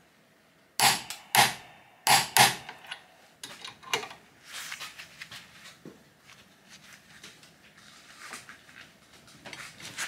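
Torque wrench tightening a 1/2-inch grade 8 bolt in a vise to 90 foot-pounds, with four sharp metallic clicks in the first couple of seconds. Quieter metallic clinks and rattles follow as a Knipex pliers wrench is fitted to the bolt head and strained against it without the bolt breaking loose.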